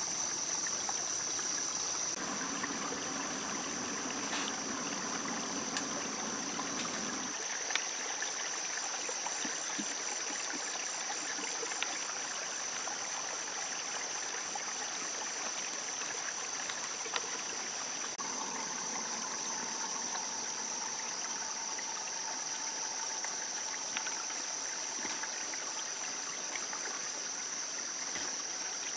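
Steady forest ambience: the even rush of running water, with a continuous high-pitched drone above it.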